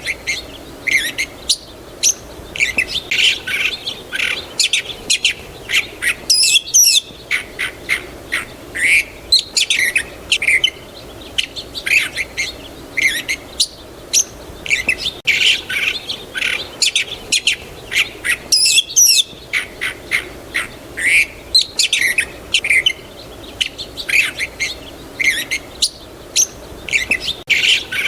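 Songbirds chirping and twittering steadily, many short high calls and quick trills overlapping.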